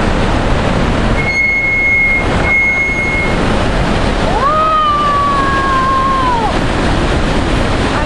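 Rhine Falls' water roaring, a loud, steady rushing noise. About a second in, a steady high tone sounds for about two seconds. Around the middle, a longer tone slides up, holds and then drops away.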